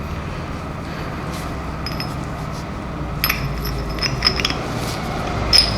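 Steel vise parts, the Wilton Bullet Vise's lead screw nut, clinking and ringing as they are handled and test-fitted: a few light metallic clinks about two seconds in, a quick cluster in the middle and one more near the end, over a steady low hum.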